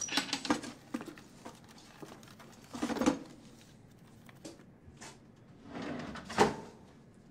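Someone rummaging at a wooden cabinet: a drawer handled and papers rustling in three short bursts about three seconds apart, with small clicks and taps between them.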